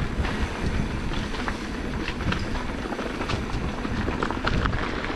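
Mountain bike rolling over a rough dirt trail: steady tyre rumble and wind on the microphone, with quick, irregular clicks and rattles from the bike.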